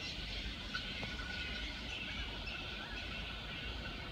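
Birds chirping over a low steady outdoor rumble, with a faint thin steady high tone holding from about a second in.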